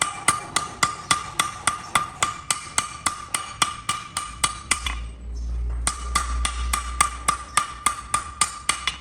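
Blacksmith's hammer striking metal on an anvil in a steady rhythm, about three to four blows a second, each blow with a short ringing note. The hammering stops for under a second about five seconds in, then resumes.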